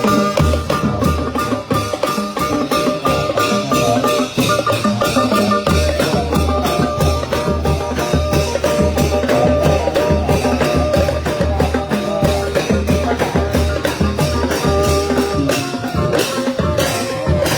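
Thai trae wong brass band playing lively music: held horn tones over a fast, steady beat of drums and cymbals, with a bass drum pounding underneath that drops out briefly about four seconds in.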